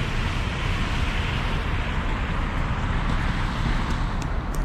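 Water splashing from a park fountain spilling over its ledges, a steady rushing hiss that thins out in the second half, over a low steady rumble.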